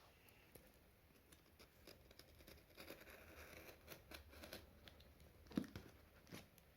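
Faint rustling and tearing of packaging as a box is opened by hand, with scattered small clicks and one sharper knock late on.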